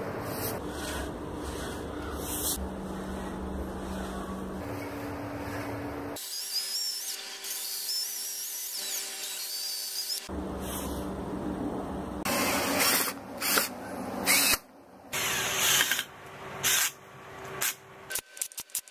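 Cordless drill/driver driving wood screws through plywood into a wooden rail, run in a series of short bursts in the second half.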